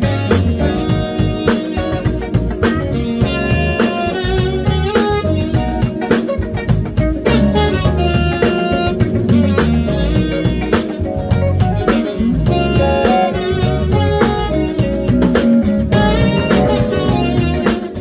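A live jazz band playing an up-tempo groove: drum kit and electric bass under keyboard chords, with an electric guitar prominent.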